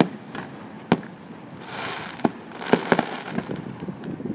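Fireworks exploding: several sharp bangs at uneven intervals, two of them close together near the middle, over a stretch of hissing noise.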